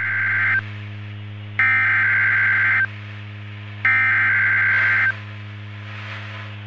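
Three bursts of EAS SAME header data, the harsh warbling digital tones of a NOAA Weather Radio alert, each a little over a second long with about a second's pause between them, over a steady low hum. They are the coded header that opens a new severe thunderstorm warning broadcast.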